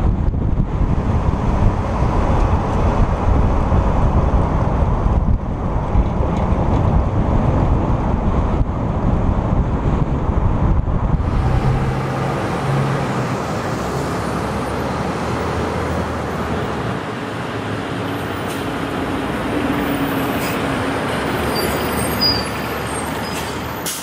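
Road and wind rumble from a vehicle driving along beside a MARTA articulated bus. Then, after a sudden change about halfway, lighter street traffic noise with MARTA city buses running past.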